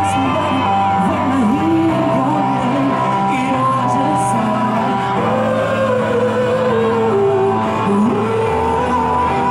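A man singing into a microphone over instrumental music with a steady bass, his melody gliding between long held notes.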